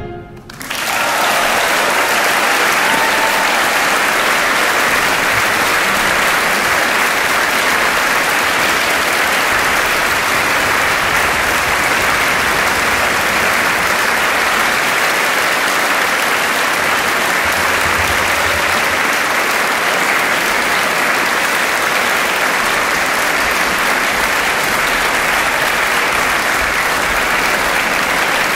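Audience applauding, the clapping breaking out within the first second and then holding at an even level.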